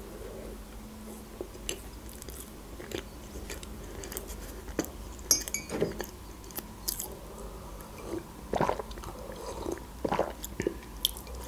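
Close-miked chewing of a mouthful of soft cake: wet mouth smacks and small clicks. Near the end comes a sip from a mug.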